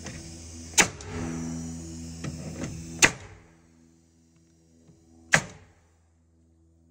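Three sharp bangs, a little over two seconds apart, over a steady mechanical hum that fades after the second bang.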